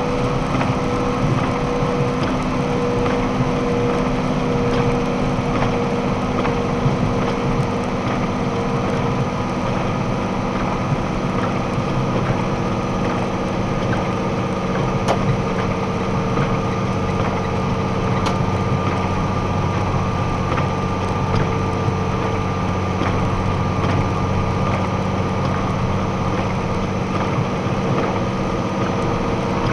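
Box truck's engine and road noise heard steadily inside the cab at highway speed, with a few steady whining tones over the drone.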